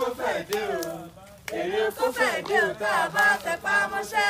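A voice singing a melody in short phrases, with longer held notes in the second half.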